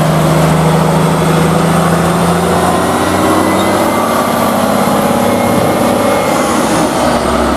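Heavy truck engine running steadily with a low hum, the engine sound of a cement mixer truck.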